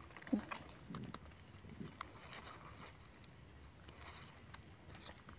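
Steady high-pitched drone of insects, with soft scattered rustles and crackles of dry leaf litter and soil as fingers dig a wild mushroom out of the ground.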